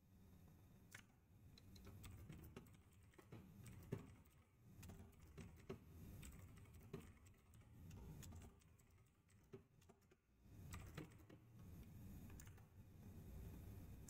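Faint typing on a computer keyboard: irregular keystroke clicks, in quick runs with short pauses.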